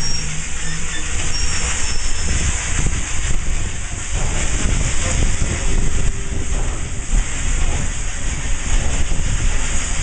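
Steady hiss of steam over a low rumble in the cab of Santa Fe 3751, a 4-8-4 steam locomotive.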